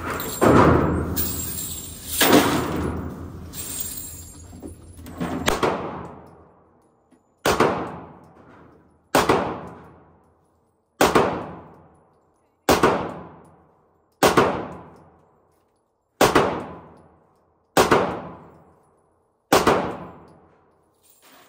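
Gunshots fired at an indoor shooting range, each one ringing out in the range's echo for about a second. A few heavy shots come in the first six seconds, then about eight single shots at a steady pace, roughly one every two seconds.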